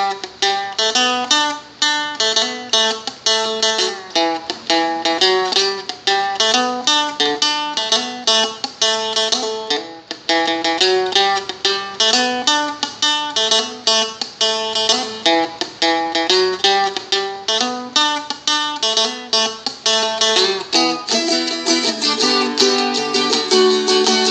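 Seagull Merlin, a four-string strumstick, played solo: a steady run of quickly plucked single notes and a moving bass line. Near the end the playing thickens into fuller, continuous strumming.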